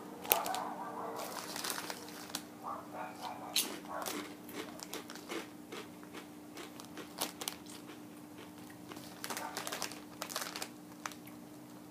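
Kettle-cooked potato chips crunching as they are bitten and chewed, with crinkling of the chip bag. The crackly clicks come in clusters, busiest near the start and again late on.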